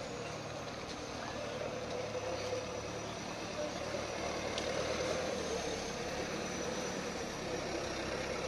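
Oil tanker truck's engine running at low revs as the truck creeps slowly forward: a steady engine hum.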